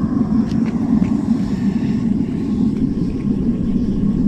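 Gas-fired melting furnace burning with its blower fan running, a steady low-pitched rush as it heats towards about 2100°F.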